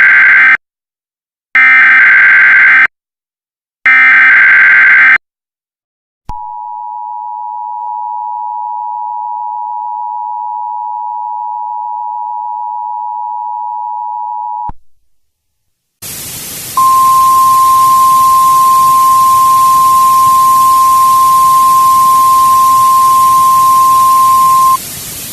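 Emergency Alert System tones: the end of one burst and two more full bursts of screechy SAME header data, each about a second long. Then comes the two-tone attention signal, held steady for about eight seconds. After a short silence, loud static starts with a single steady alarm tone over it for about eight seconds, in the style of a NOAA Weather Radio warning alarm.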